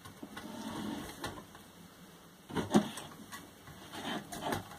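Black-throated monitor lizard biting at a raw chicken leg held out by hand: a few sharp snaps and crunches, the loudest about halfway through and another cluster near the end.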